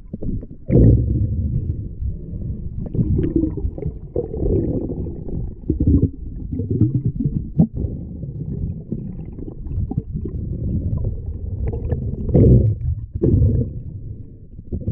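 Muffled low rumbling and sloshing of water moving past an underwater camera as a swimmer moves through a lake, swelling and fading irregularly with a few sharp clicks and knocks.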